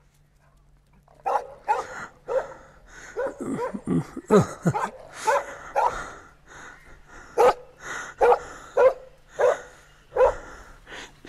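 A dog barking repeatedly, starting about a second in: a quick flurry of barks mixed with falling yelps, then single barks about one a second.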